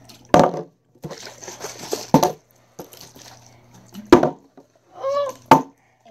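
Partly filled plastic drink bottles flipped and landing on a table: four sharp knocks, one about every one and a half to two seconds.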